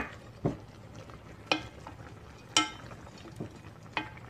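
Wooden spoon stirring chicken feet in a pot of boiling adobo liquid, knocking against the metal pot several times so that it rings briefly, over a faint steady bubbling.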